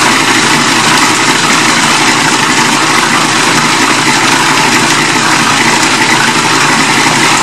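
Electric food processor motor running steadily at full speed, its blade grinding raw fish into a paste.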